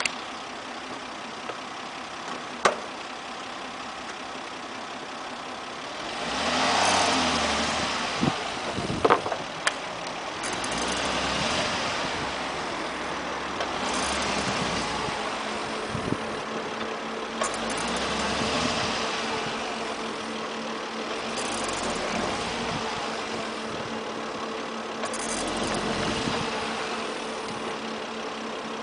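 Volvo S80 heard from its right side mirror: a steady engine and road noise that swells every few seconds, with a few sharp knocks, a single one early on and a quick cluster about a third of the way in. This is the strange knock-knock-knock the owner is trying to track down.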